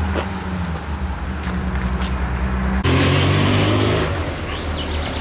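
Steady engine hum of the vehicle following the cyclists; after an abrupt cut about three seconds in, a louder engine of an approaching motorcycle, its pitch slowly falling.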